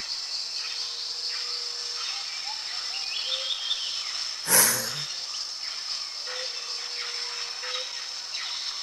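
Steady, high-pitched drone of insects in a forest ambience, with one short, loud, hissing burst about four and a half seconds in.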